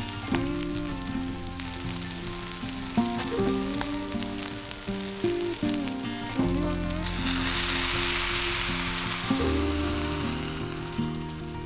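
Food sizzling and frying in a hot pan. The sizzle swells sharply about seven seconds in and dies back about four seconds later, over background music.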